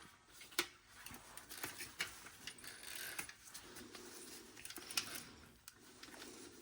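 Old rubber tire being pried and pulled off a Roomba i7 drive wheel: faint scraping and rubbing with a few sharp clicks, the loudest about five seconds in.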